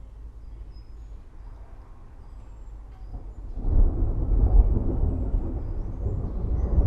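Low rumble of thunder that swells sharply about halfway through and keeps rolling, with faint bird chirps high above it.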